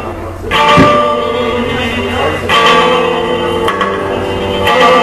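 Guitar playing chords, a fresh strum about every two seconds, each chord ringing on between strums.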